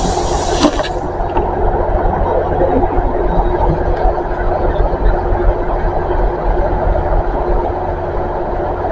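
Diesel passenger train idling while it stands at the platform: a steady engine drone with a constant hum. A short hiss in the first second.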